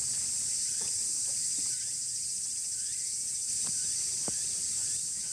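A steady, high-pitched chorus of insects chirping.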